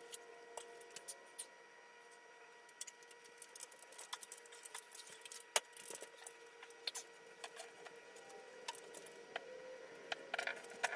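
Faint, irregular light clicks and taps over a faint steady hum.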